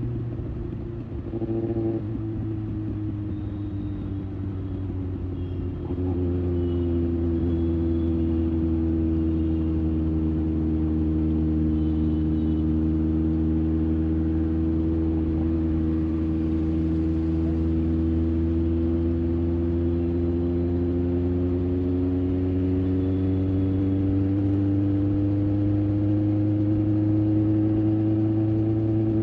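Kawasaki Ninja ZX-6R inline-four through an IXIL aftermarket exhaust, running at a steady engine speed. It grows louder with a small change in pitch about six seconds in, then holds, its pitch rising slightly near the end.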